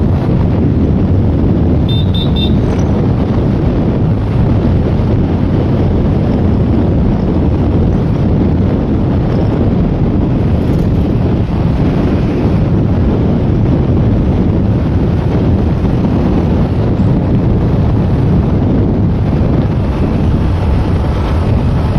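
Wind buffeting the microphone on a moving motorbike, with the engine and road noise running steadily underneath.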